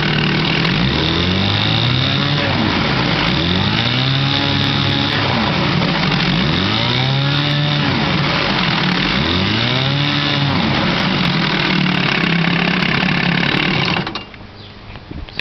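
1990s Evinrude 2.5 hp two-stroke outboard motor running, revved up and back down to idle four times a few seconds apart. Near the end its sound suddenly drops away as the motor stops.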